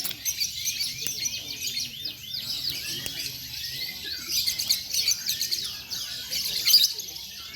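Domestic canaries singing, a dense overlapping stream of rapid trills, chirps and short whistled glides.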